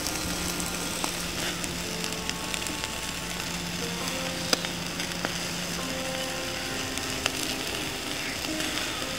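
Fish roasting over a charcoal fire: a steady sizzling hiss with scattered crackles and two sharp pops, under soft background music with held notes.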